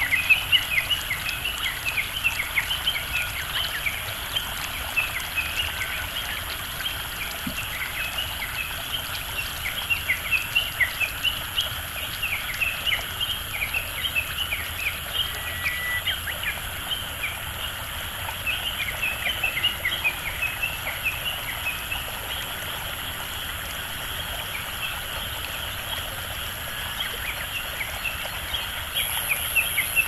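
Rice-paddy frog chorus: many short, quick calls repeated in bouts of a few seconds, over a steady hiss and a thin, steady high whine of insects.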